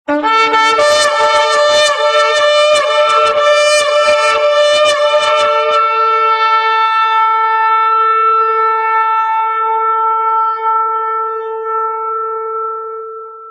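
A shofar blast that starts abruptly with a brief low note and jumps up to its main pitch. It sounds rough and fluttering for about six seconds, then settles into a long steady held note that fades out near the end.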